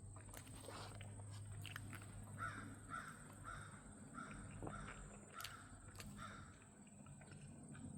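A bird calling a run of about eight short, evenly spaced calls, roughly two a second, starting about two seconds in.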